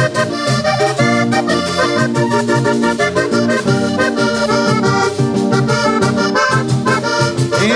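Vallenato music in an instrumental break: a diatonic button accordion plays a melodic run of held notes over guitars, a bass line and a steady percussion beat.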